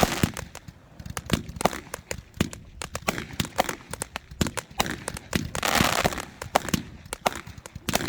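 Fireworks going off: an irregular string of sharp pops and cracks, several a second, with a short hissing, crackling burst about six seconds in.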